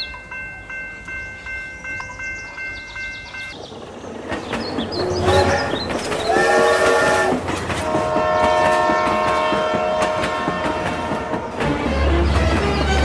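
A steady warning tone with regular ticks, then two long train horn blasts over the clatter of a train rolling on rails, ending in a low rumble.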